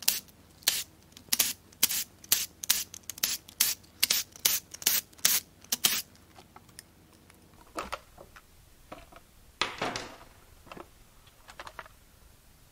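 Cordless power driver running in many short bursts, spinning out the valve cover bolts one after another for about six seconds. Then a few knocks and a rub as the valve cover is worked loose and lifted off the cylinder head.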